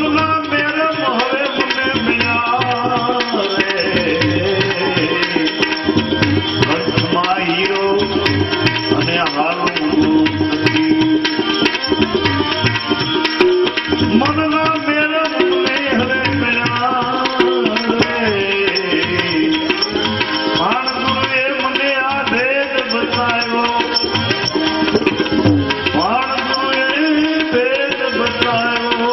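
Instrumental interlude of a Gujarati devotional bhajan: tabla keeps a steady beat under a melody instrument that slides between notes.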